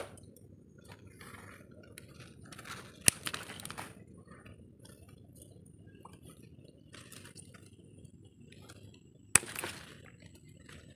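Scissors snipping through the stems of potted bitter greens: three sharp clicks, one right at the start, one about three seconds in and one about nine seconds in, with softer handling noises between.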